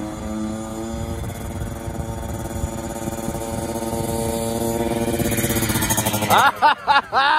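Kawasaki KX65's small two-stroke single-cylinder engine running as the dirt bike rides toward the camera, steadily getting louder and slightly higher in pitch. About six seconds in it passes close by, loud, with its pitch swinging up and down.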